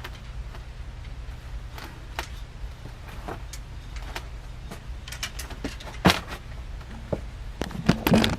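Scattered clicks and knocks of metal parts and hardware being handled while a ceiling fan is put together, with a sharp knock about six seconds in and a flurry of clicks near the end, over a steady low hum.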